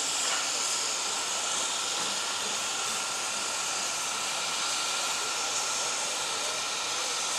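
Steady hiss of steam escaping from the open cylinder drain cocks of a BR Standard Class 4 2-6-4 tank steam locomotive as it moves slowly, with a faint, thin steady tone running through it.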